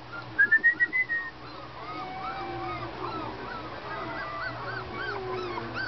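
Miniature dachshund puppies whimpering and squeaking in many short, high, rising-and-falling cries that overlap. Near the start comes a quick run of about six louder yips.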